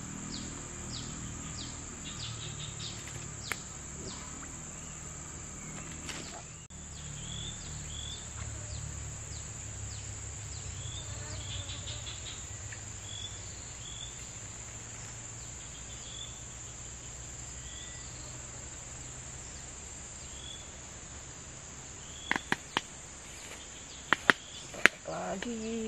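Steady high-pitched drone of insects, with short high chirps repeating every second or so through the middle. A few sharp clicks come near the end.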